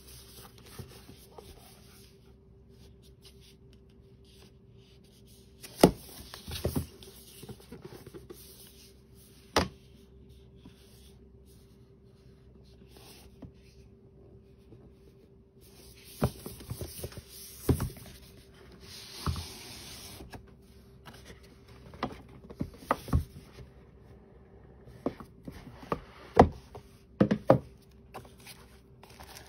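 Cardboard product box being handled and opened: scattered knocks and taps on the cardboard and stretches of rubbing and sliding, over a faint steady hum.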